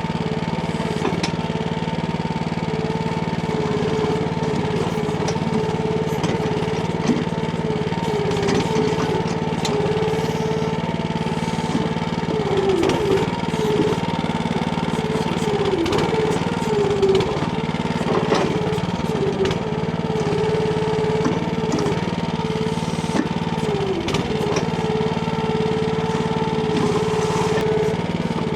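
Small petrol engine of a Timco ATV-570R towable backhoe running steadily, its pitch dipping briefly every few seconds, with scattered knocks and clicks over it.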